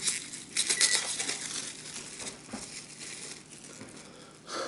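Clear plastic wrapper of a disposable fork packet crinkling and tearing as it is pulled open, loudest about a second in, with softer rustling after and a short burst near the end.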